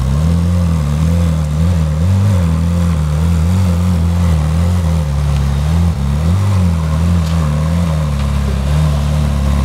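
Ferrari 458 Italia Spider's 4.5-litre V8 running at low revs as the car drives slowly. The pitch wavers a little with light throttle and dips briefly about six seconds in.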